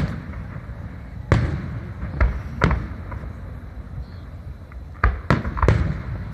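Aerial firework shells bursting: a series of sharp bangs, one at the start, three more over the next few seconds, and a quick cluster of three about five seconds in, over a steady low rumble.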